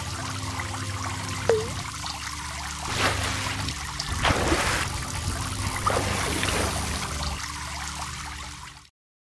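Trickling water sound effect over a low steady hum, with a short chirp about a second and a half in and a few swelling swishes in the middle. It cuts off abruptly shortly before the end.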